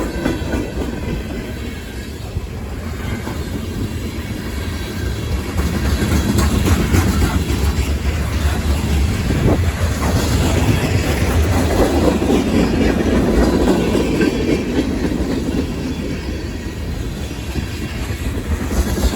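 Freight cars of a long CSX freight train rolling past, wheels clicking over the rail joints over a steady rumble. It swells in the middle and eases off near the end.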